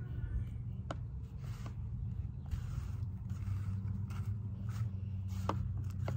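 Gloved hands working potting soil and a flowering plant into a planter: soft scraping and rustling with a few sharp clicks, over a steady low hum.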